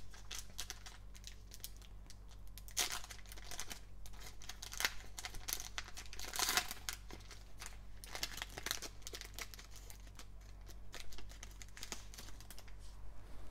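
A foil Panini Select trading-card pack being torn open, its wrapper crinkling and crackling as it is pulled apart, with several louder bursts of crinkling.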